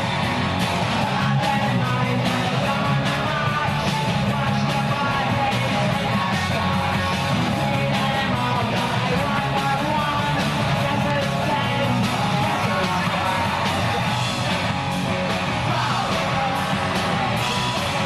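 Loud punk rock song with electric guitar and yelled singing, playing steadily throughout.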